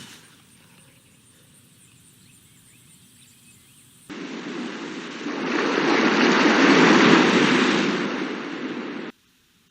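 Film-clip sound effects: a faint ambient hiss, then a hard cut about four seconds in to a loud rushing roar that swells and cuts off abruptly near the end.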